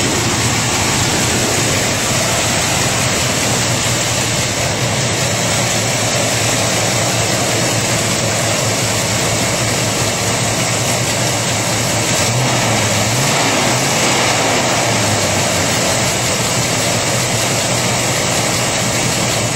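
1970 Chevrolet pickup's engine idling steadily, with a brief rise and fall in engine speed about twelve seconds in, under a heavy steady hiss.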